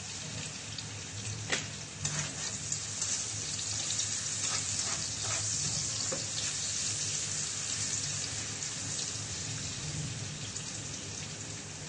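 Prawns frying in hot oil in a pan, a steady sizzling hiss, with the spatula clacking and scraping against the pan several times during the first half.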